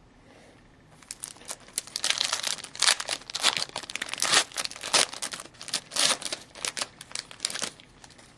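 SP Authentic hockey card pack wrapper being torn open and crinkled by hand: a dense run of crackles from about a second in until near the end.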